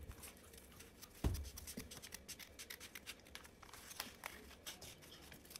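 Scissors snipping through a sheet of paper: a run of soft, short cuts, with one dull thump about a second in.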